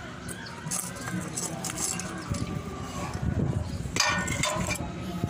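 Metal clinks and rattles as the rusty steel shade and base of a desk lamp are handled, with a louder clatter about four seconds in.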